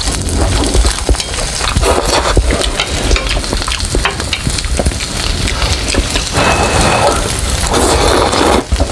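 Close-miked slurping and wet chewing of instant noodles, full of small smacking clicks, with two longer slurps, one about two seconds in and a louder one from about six and a half seconds.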